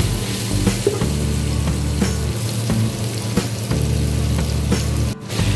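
Chicken pieces and onion-spice masala sizzling as they are fried in a nonstick pot, stirred and scraped with a nylon spatula that makes small clicks against the pan. A steady low hum runs underneath.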